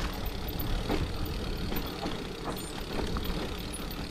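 Mountain bike descending a dirt trail at speed: a steady low rumble of tyres rolling over the dirt, mixed with wind on the microphone. Scattered knocks and rattles come from the bike as it runs over bumps.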